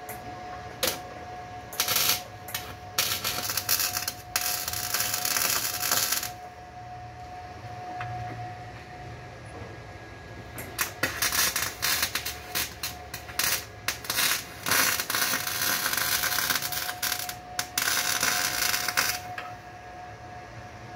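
MIG welder crackling and sputtering as it lays short spot and stitch welds on car body sheet metal. The welding comes in two runs of short bursts with a pause of a few seconds between them.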